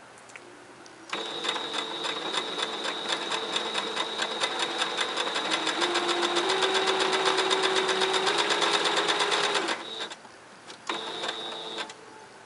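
Singer Advance electric sewing machine stitching: a rapid, even ticking over a steady high whine, one long run that gets louder in its second half, then stops. A short second run of about a second follows near the end.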